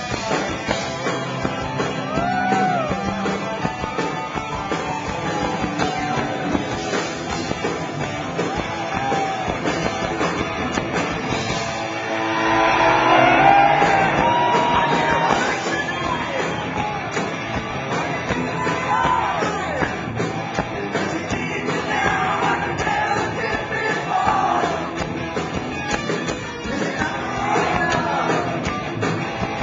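Hard rock band playing live, heard through a small camcorder's microphone in the audience: electric guitar lead with notes that bend up and down over drums and bass, louder for a few seconds near the middle, and the singer's voice coming in near the end.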